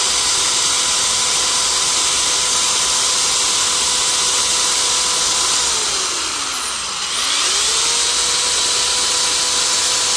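Corded electric drill running at steady high speed as it bores a pilot hole in a small wooden block, with a steady motor whine. About halfway through, the motor slows with its whine falling in pitch, then speeds back up about a second later.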